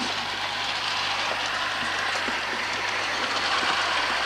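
3.5-inch gauge Hornby live-steam model of Stephenson's Rocket running along garden railway track, a steady rushing noise with no clear beat.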